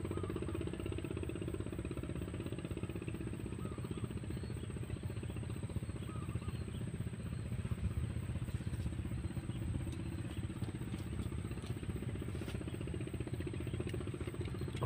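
A small engine running steadily with a fast, even low chugging.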